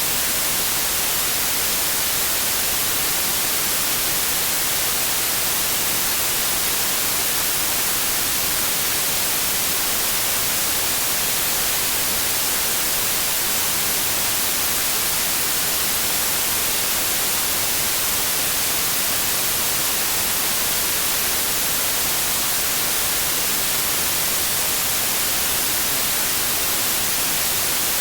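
Synthetic white noise: an even, steady hiss with a flat spectrum, unchanging and without any pattern or repeat.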